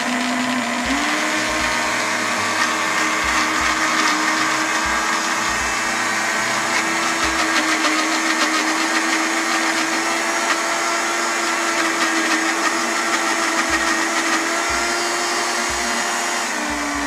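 Countertop electric blender running steadily, blending corn into a cream. Its pitch steps up slightly about a second in, and at the very end it is switched off and winds down.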